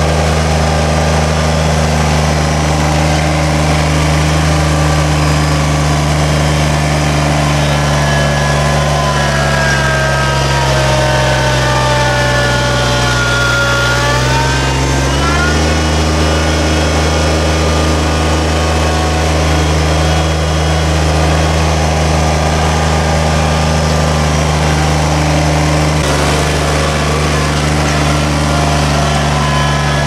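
Subcompact tractor engine running steadily at working speed while the tractor drives the dirt trail. About halfway through, the engine note sags slowly, then snaps back up to speed.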